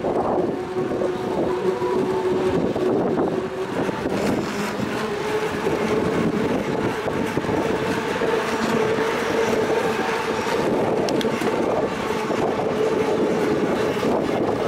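Steady rolling noise of a bicycle being ridden on pavement, a rumble and rattle with a steady hum that rises a little in pitch about four seconds in.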